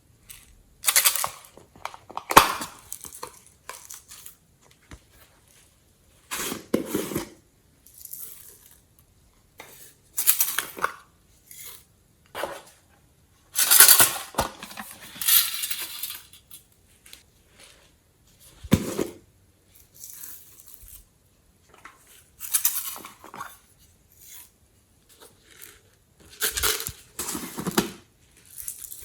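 Glossy slime being handled and mixed with add-ins: separate bursts of crackling, scraping and clinking, a second or two apart.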